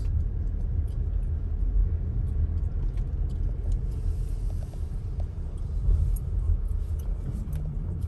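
Steady low rumble of a car driving, heard from inside the cabin, with a few faint clicks.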